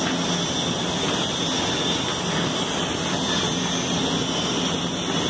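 A steady hum and hiss, like running machinery, with a thin high whine over it and no distinct clicks or knocks.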